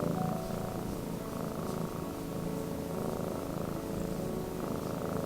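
Orange tabby kitten purring steadily.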